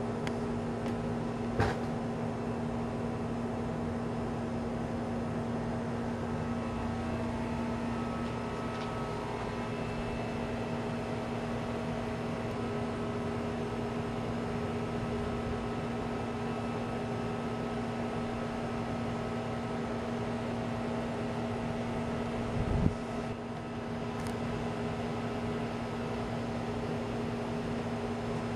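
Steady mechanical hum made of a low drone and several fixed tones, with a sharp click about two seconds in and a brief low thump near the end.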